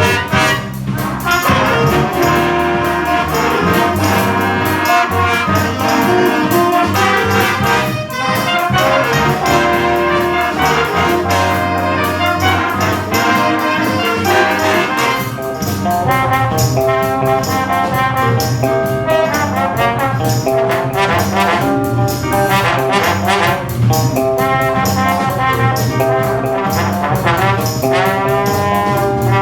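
A jazz big band playing a funk-groove chart: brass lines with trombones and trumpets to the fore, with sharp rhythmic hits over a steady drum beat.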